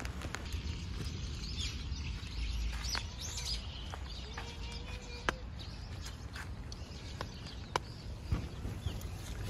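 Light rain falling, with scattered sharp drops ticking close by, and small birds chirping a few times in the first few seconds.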